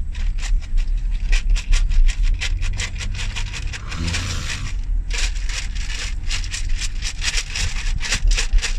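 Steady low rumble of a car driving, heard from inside the cabin, with rapid scraping and rubbing noises close to the microphone throughout.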